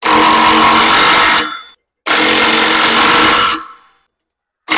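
Cordless impact wrench hammering 19 mm bolts tight on a steel bracket, in bursts of about a second and a half with a whining motor. Two bursts, and a third starts right at the end.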